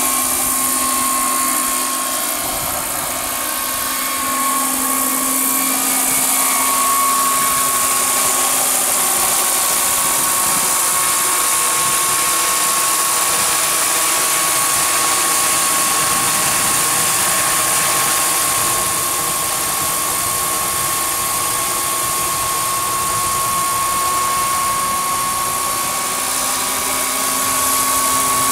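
Turbine-powered RC scale model of a Sikorsky S-64 Skycrane helicopter in flight: its model gas turbine gives a steady high whine with a strong hiss above it. The sound swells and eases a little as the helicopter moves about overhead.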